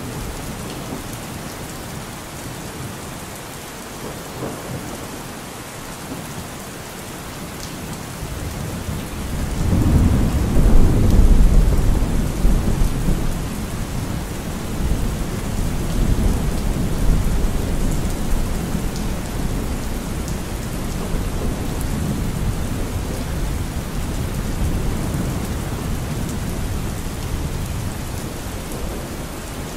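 Thunderstorm: steady rain falling, with a deep roll of thunder that swells about ten seconds in and rumbles on, slowly fading.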